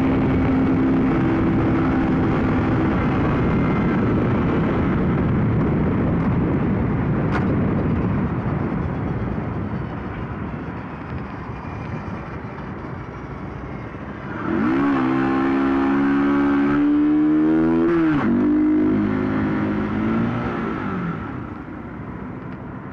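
Honda CBR125R single-cylinder engine running under way, with a steady rush of wind and road noise. The engine goes quieter while the bike slows for a turn. About fifteen seconds in it revs up with a rising pitch as the bike accelerates away, drops sharply at a gear change near eighteen seconds, pulls up again, and eases off near the end.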